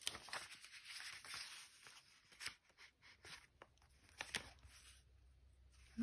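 Faint rustle of paper as magazine pages in a handmade journal are handled and turned, with a few soft clicks and taps.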